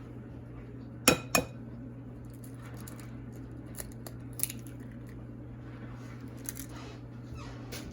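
An egg knocked twice against the rim of a mixing bowl to crack it, followed by scattered light clinks of a utensil against the bowl. A steady low hum runs underneath.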